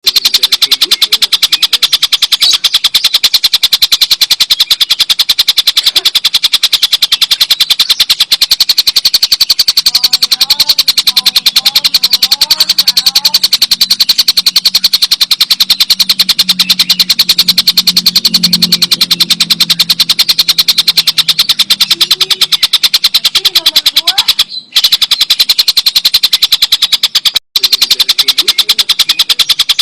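Tengkek buto kingfisher giving its long, loud cackling call, a fast unbroken run of sharp high notes that cuts out twice for an instant near the end.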